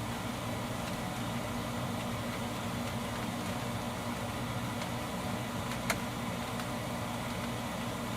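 Steady low machine hum, like a fan or air-handling unit running, with a single small click about six seconds in.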